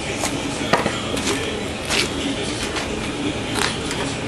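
A few short knocks and clicks from handling things around the tractor engine, over a steady low rumbling background.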